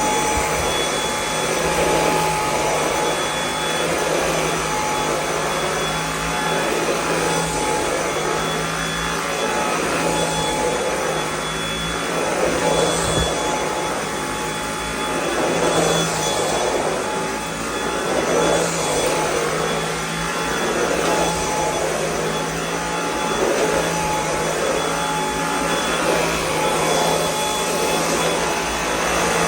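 Dyson V8 Extra cordless stick vacuum running with its power head fitted, a steady whine over rushing airflow that swells and fades every couple of seconds. It is on its normal power setting, not max.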